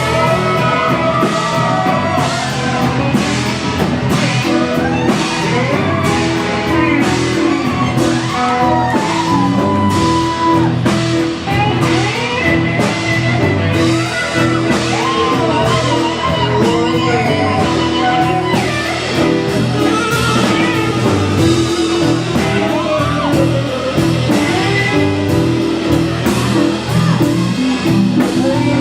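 Rock music with guitar, drums and a singing voice, loud and with a steady beat.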